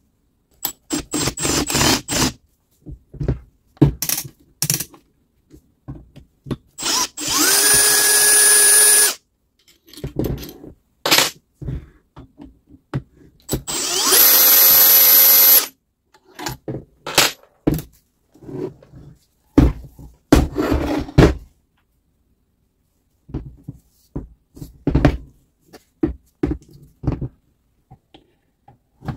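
Cordless drill-driver spinning up with a rising whine and running steadily for about two seconds, twice. Between the runs are short clicks and clatter of tools and parts.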